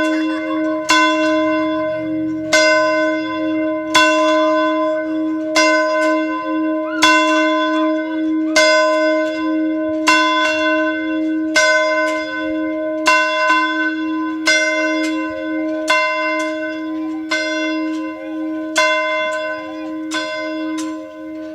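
Church bell rung as an evening call to prayer, striking about every second and a half, with a steady low hum ringing on between strokes. The strokes grow weaker near the end.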